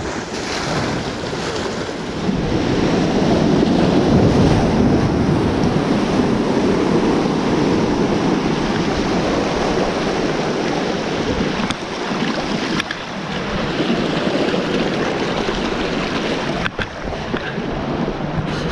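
Sea surf washing and breaking over shoreline rocks close by, with gusts of wind on the microphone.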